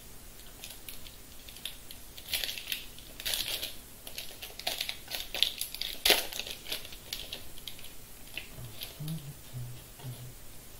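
Foil wrapper of a Bowman baseball card pack crinkling and tearing as it is ripped open by hand: an irregular run of crackles with one sharp crack about six seconds in, then quieter handling of the cards.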